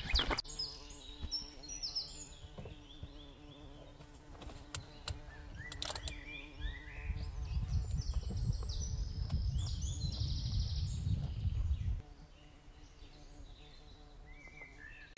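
Small birds chirping and twittering over a faint steady hum. A low rumble comes in about halfway and stops suddenly near the end.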